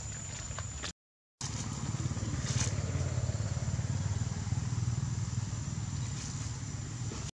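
A low, steady engine rumble with a thin, steady high whine above it. The sound drops out completely for about half a second near the start.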